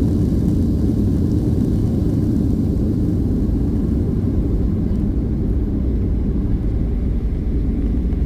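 Steady low rumble inside the cabin of a Boeing 737-800, the noise of its engines and airframe, with the higher hiss easing slightly about five seconds in.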